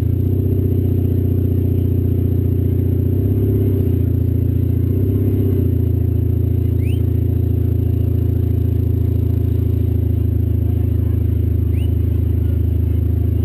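1988 Honda Civic demolition-derby car's four-cylinder engine idling, heard from inside the stripped cabin; the idle wavers slightly a few seconds in, then holds steady.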